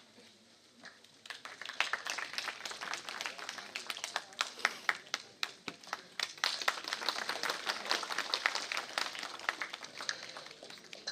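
Audience applauding with many hands clapping. It starts about a second in and thins out near the end.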